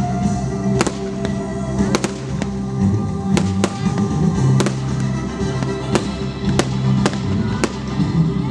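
Aerial fireworks bursting in a rapid, uneven series of sharp bangs, roughly one or two a second, over music with long held low notes.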